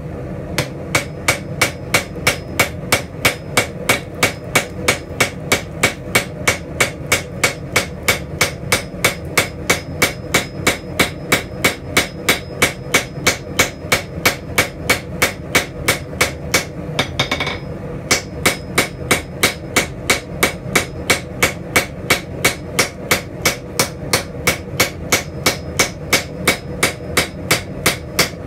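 Straight peen hammer striking a red-hot steel spatula blade on an anvil in a steady rhythm of about three blows a second, drawing the blade out longer and thinner. The hammering pauses for about a second around two-thirds of the way through, then carries on.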